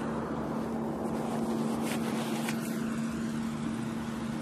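Running noise of a moving tram heard from inside the car: a steady rumble with one constant humming tone.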